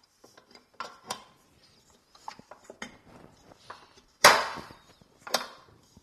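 Stainless steel mixing bowl clanking and knocking as it is handled and seated on a KitchenAid stand mixer. Scattered light knocks build to a loud ringing clank about four seconds in and another a second later.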